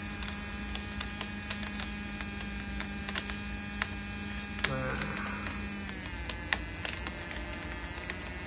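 Small Mini 4WD electric motor running at low voltage, about 2 V, spinning a wheel in lighter fluid inside a glass jar to wash bearings: a steady hum with many small irregular clicks and rattles. The hum shifts slightly about six seconds in.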